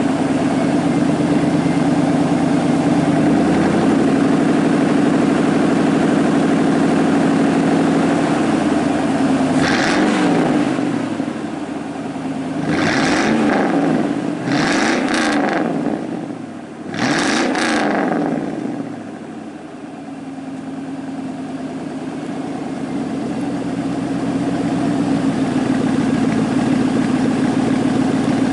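A 2000 Chevy Silverado's 5.3-litre V8 runs through straight-piped true dual exhaust with no mufflers. It idles steadily, then is revved in several quick throttle blips between about ten and eighteen seconds in. After the blips it drops back and settles into idle again.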